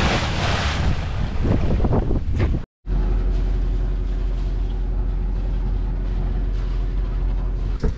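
Wind buffeting the microphone over rushing, splashing water. After a sudden brief dropout comes a steady low hum with a faint steady tone above it, like a machine running on board a boat.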